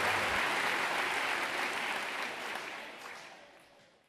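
Applause, a steady even clatter of many hands, fading out over the last second and a half until it stops.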